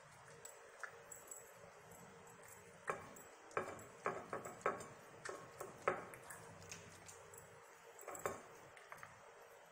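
A small dog licking a ceramic plate clean: quick licks and sharp clicks of tongue and teeth against the plate, busiest from about three to six and a half seconds in, with another short run near the end.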